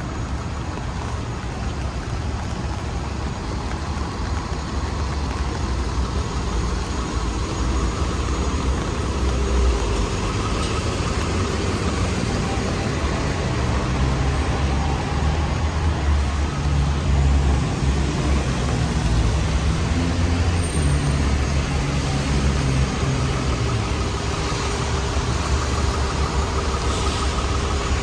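Downtown street traffic in the rain: a steady hiss of rain and wet road, with a large vehicle's engine rumbling low and getting louder around the middle before easing off.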